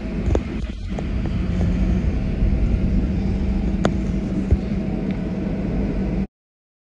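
Steady low rumble of an airliner's jet engines heard inside the passenger cabin before takeoff, with a faint steady hum in it; it cuts off suddenly near the end.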